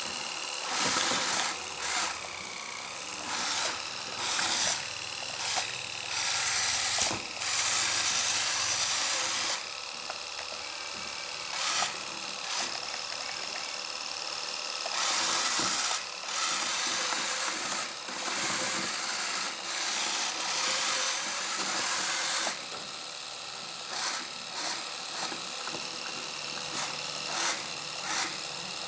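Small electric motors of a radio-controlled scale model farm machine whining in repeated bursts, switched on and off, some short and some held for several seconds.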